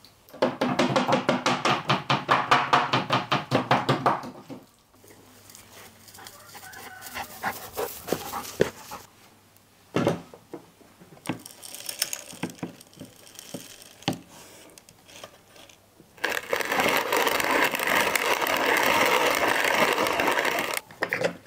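Food-preparation sounds: rapid, evenly repeated tapping for about four seconds, then scattered knocks and clicks with one heavier thump, then a steady rushing noise that starts and stops abruptly, lasting about four and a half seconds near the end.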